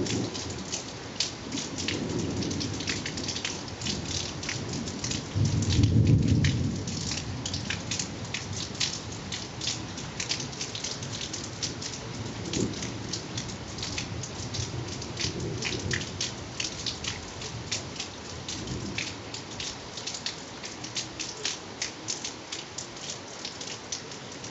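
Thunderstorm: rain falling with many separate drops striking close by, and thunder rumbling in several rolls, the loudest about six seconds in.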